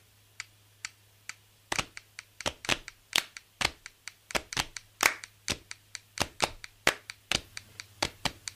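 A series of sharp, irregular claps or taps: a few spaced ones at first, then coming more thickly from about two seconds in, over a faint low hum.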